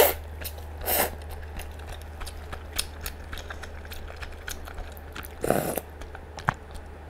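Close-up mukbang eating: udon noodles slurped at the start and again about a second in, then chewing with many small wet mouth clicks, and another short slurp about five and a half seconds in.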